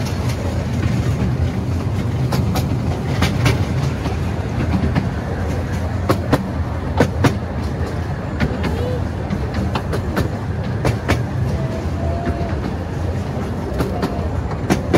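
A 12-inch gauge miniature railway train running, heard from an open passenger carriage: a steady low rumble with sharp, irregularly spaced clicks of the wheels passing over rail joints.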